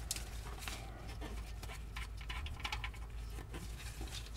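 Faint scattered light clicks and rustles of hands and a ratchet handling the transmission fill plug, over a low steady hum.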